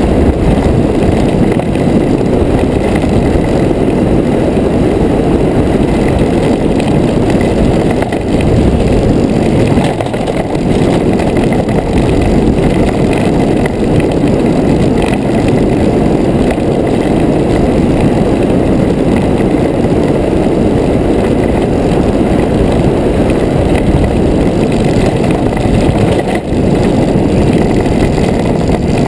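Wind and road noise of an engineless soapbox racer rolling downhill at speed, picked up by a GoPro mounted on the car: a loud, steady rushing rumble.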